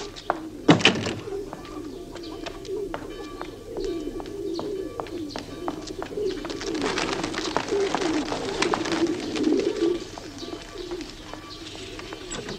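Pigeons cooing steadily, with a loud knock about a second in and scattered faint ticks.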